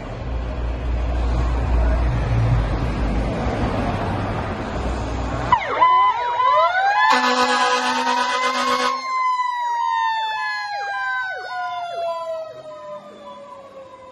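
Fire rescue truck's diesel engine rumbling as it pulls out of the station bay, then its siren winds up about six seconds in, an air horn sounds for about two seconds, and the siren winds slowly down in pitch as the truck drives off and fades.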